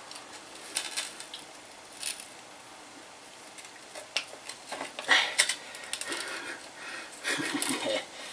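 Metallic clinks and scrapes of a large adjustable spanner being fitted and worked on a bolt at a bicycle's bottom bracket. The clicks come singly at first and cluster about five seconds in and again near the end.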